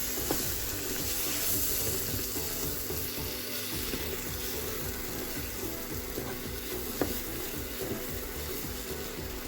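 Food frying in a pan, a steady sizzle, with a sharp knock about seven seconds in.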